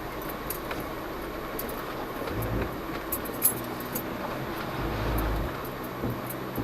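Jeep Cherokee Trailhawk driving slowly over a rough dirt trail: steady road noise with scattered small rattles and clicks. The engine's low rumble swells twice, and one sharp knock comes about three and a half seconds in.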